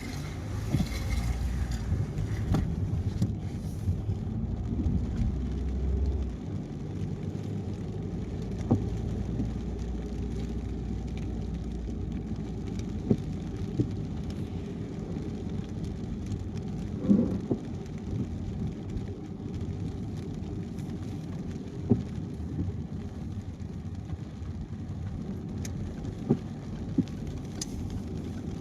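Steady low tyre and road rumble of a car driving on a wet highway in the rain, heavier for the first few seconds. Scattered short sharp taps sound throughout, the loudest about seventeen seconds in.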